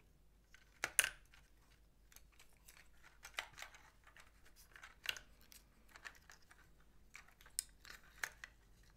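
Light clicks and taps of small plastic parts being handled: fingers working a small motor and its cracked clear plastic bracket out of a robot's plastic wheel housing. The clicks are scattered, the loudest about a second in.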